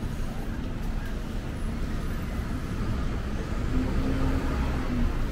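Steady city street traffic: cars and buses running on a wet road, a low rumble with tyre hiss. A faint low hum rises briefly about four seconds in.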